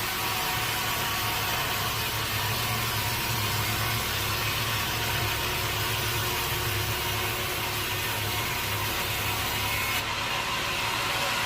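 Sawmill machinery running steadily: a continuous engine-like hum with a wide hiss over it, the hiss changing about ten seconds in.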